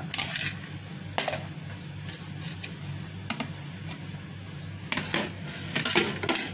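Dates being put by hand into a stainless steel mixer jar. Scattered clinks and knocks on the steel come a few times, with the busiest cluster near the end, over a steady low hum.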